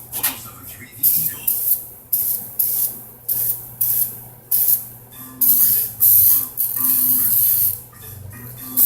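Spray hissing onto greasy engine pistons during cleaning: short bursts about two a second, then a few longer bursts.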